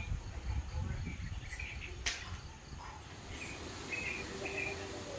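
Outdoor hillside ambience: scattered short high chirps of small creatures over a low rumble that is strongest at the start, with one sharp click about two seconds in.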